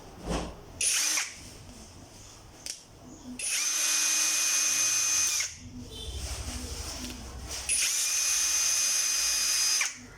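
Brushless cordless drill (SUMASU YMS6013B) running with a steady high whine, twice for about two seconds each, after a brief trigger blip about a second in.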